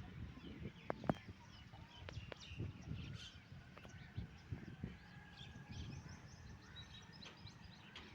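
Ducks feeding and drinking, their bills dabbling with irregular soft low sounds and a few sharp clicks, while short high chirps come and go throughout.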